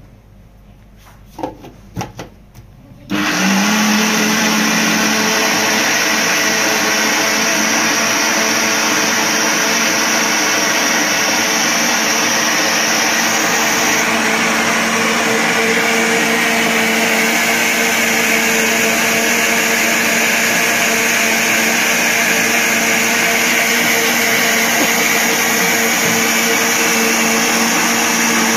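Blender jar knocked a few times, then the countertop blender switched on about three seconds in, rising briefly to speed and running loud and steady while it blends a milk and Oreo biscuit milkshake.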